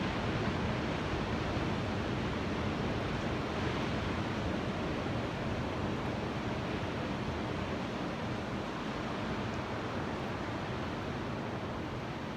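Ocean surf washing continuously, a steady wash of noise with no distinct single wave breaks, easing slightly toward the end.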